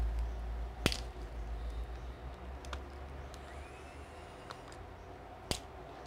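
A few sharp clicks and light taps from small tools and parts handled during laptop disassembly. The two loudest come about a second in and near the end, with fainter ticks between them, and a low hum fades away over the first few seconds.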